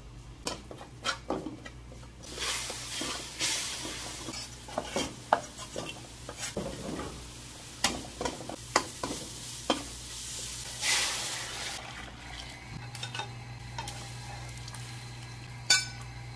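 A long metal spoon stirring and scraping in a wok, knocking against the pan many times, while chili powder frying in oil sizzles, with louder bursts of sizzling about two seconds in and again around ten to eleven seconds in. A steady low hum runs underneath.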